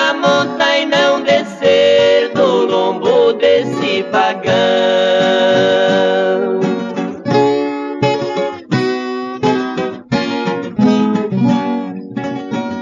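Sertanejo raiz music: acoustic guitars plucking and strumming. A sustained melodic line rides over the guitars in the first half, and the strumming comes to the fore after about six seconds.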